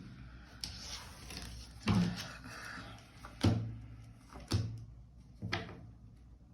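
Tarot cards being handled and set down on a table: about five sharp taps and slaps, roughly a second apart.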